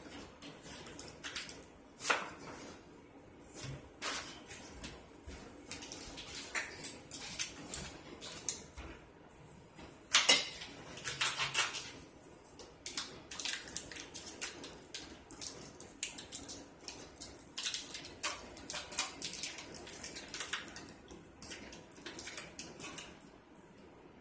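Foil wrapper of a block of cream cheese crinkling and tearing as it is unwrapped, in a quick run of crisp rustles and clicks, loudest about ten seconds in. Small taps of a knife mix in with it.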